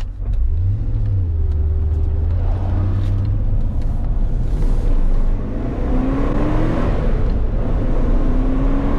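Porsche 928 S V8 engine heard from inside the cabin while the car is driven, pulling steadily and then revving up about six seconds in, dropping back at a gear change and climbing again near the end.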